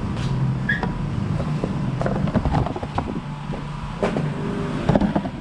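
Steady low rumble of road traffic, with a scatter of sharp clicks and knocks from motorcycle parts and packaging being handled on a glass shop counter.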